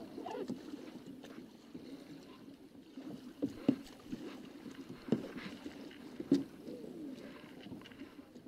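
Paddles dipping and splashing in sea water beside a plastic sit-on-top kayak, with a few sharp, loud strokes about three and a half, five and six seconds in.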